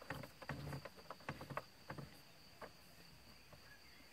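About a dozen light, irregular clicks and taps of fingers handling plastic centre-console trim and small screws during dashboard reassembly, over a faint steady high whine.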